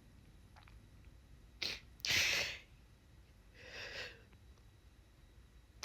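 A woman's sharp, noisy breath through the nose about two seconds in, then a softer breath about a second later: sniffling while she tries to hold back tears.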